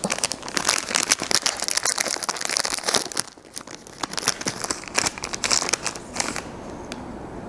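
Plastic wrapper of a Magnum ice cream bar crinkling and tearing as it is opened by hand, in two bouts with a short pause about three seconds in, then quieter near the end.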